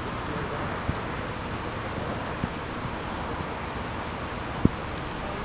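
Crickets chirping, an evenly pulsing high trill over a steady background hiss. A few short knocks cut through, the sharpest about four and a half seconds in.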